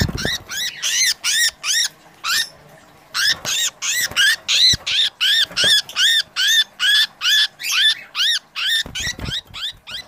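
A budgerigar giving a fast series of harsh squawking calls, about three a second, with a short break about two and a half seconds in. The keeper takes this call for the sign of a budgie being attacked by a cagemate, a male beating a female or the reverse.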